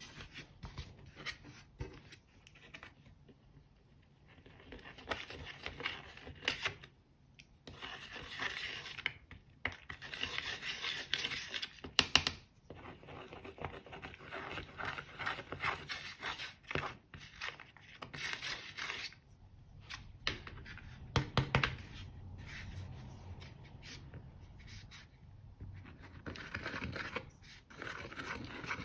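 Slime being worked by hand as eyeshadow is mixed in, giving irregular sticky crackles, clicks and scraping noises that come and go in bursts.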